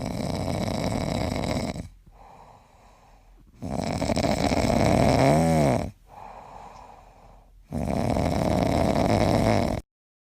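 Dog snoring: three loud snores of about two seconds each, with quieter breaths between them. The middle snore ends with a brief tone that rises and falls.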